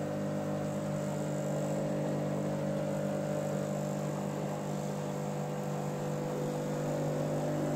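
Steady electrical hum of aquarium equipment, an air or water pump, with a constant hiss of water and rising bubbles.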